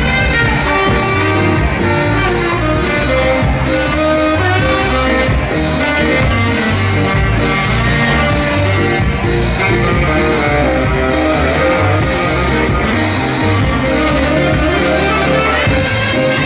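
Live ska band playing: trumpet, saxophone and trombone over guitar, keyboard, bass and drums, with a steady beat.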